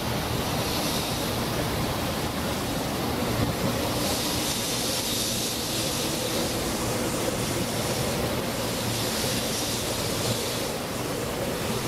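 A 0 Series Shinkansen train moving slowly along the platform: a steady rushing hum with no clear wheel beats.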